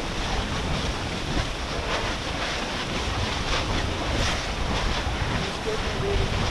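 Molten lava of a lava lake churning and splashing against its crust: a steady rushing noise, mixed with wind on the microphone, with faint crackles now and then.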